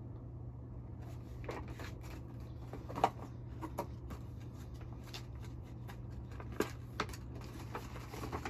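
Paper rustling and crinkling as a large sheet is handled and unfolded, starting about a second in, with a few sharper crackles, the loudest about three seconds in and again near the end.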